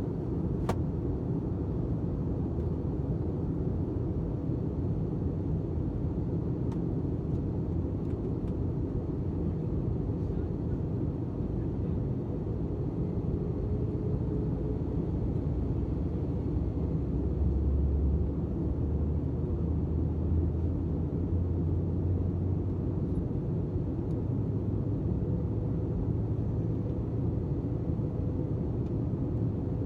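Steady low rumble of an airliner's engines and airflow, growing somewhat deeper and stronger about seventeen seconds in.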